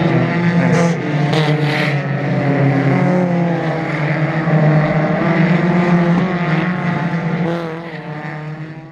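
Renault Twingo Twin'Cup race cars' engines running hard as several cars pass one after another, their pitch rising and falling as they brake and accelerate through a chicane. The sound fades out near the end.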